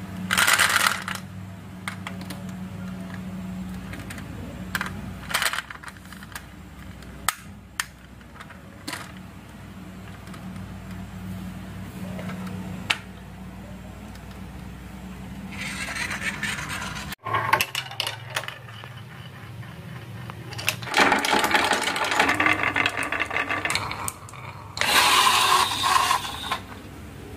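Marbles rolling and clattering down a marble run: scattered clicks, with several longer bursts of rapid rattling, the longest near the end, over a steady low hum.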